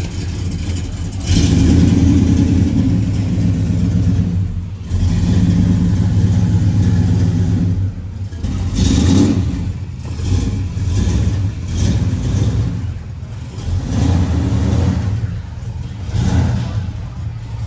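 Chevrolet Chevelle's engine running loud and being revved in several surges as the car pulls out, the deep exhaust note swelling and dropping back a number of times.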